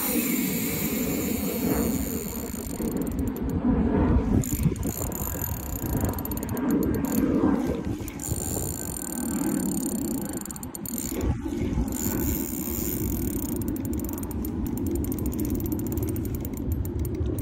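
Ultralight spinning reel under strain from a hooked big grass carp, giving a continuous rapid clicking and whirring of its drag and gears.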